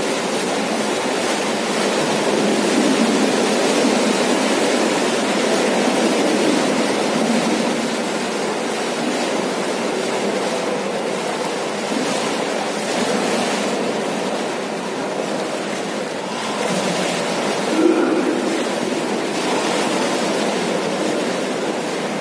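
Swimming pool water splashing and sloshing in a steady wash, with one brief sharper splash about 18 seconds in.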